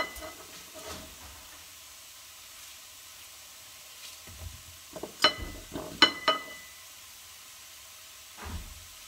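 Diced apples cooking gently in a frying pan on low heat, a soft steady sizzle. Over it come a few sharp, ringing metallic clinks, one at the very start and three between about five and six and a half seconds in, and a couple of dull knocks.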